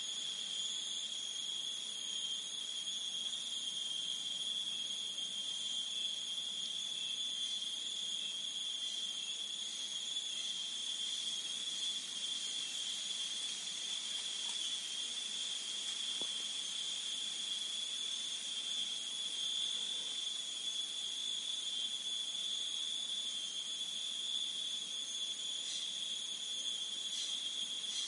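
Steady high-pitched chorus of forest insects, a continuous shrill drone that does not break or change.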